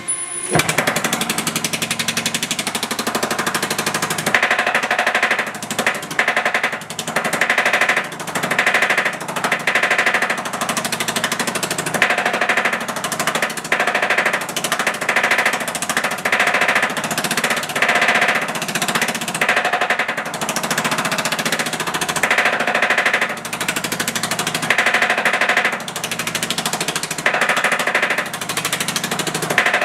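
Power hammer fitted with shrinking dies running fast, rapidly hammering 18-gauge sheet metal as the panel edge is fed through to shrink it. The blows start just after the beginning and run on continuously, with a metallic ring that swells and fades in spells of about a second as the sheet is moved under the dies.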